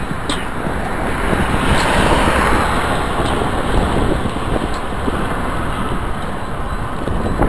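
Wind buffeting the microphone and road rumble from a camera on a moving bicycle, with traffic going by on the road and a swell of vehicle noise about two seconds in.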